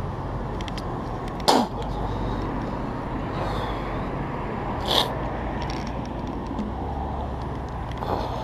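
Steady low rumble of an idling vehicle engine, with two short sharp scrapes of something rubbing against the body-worn camera, about a second and a half in and again near the middle.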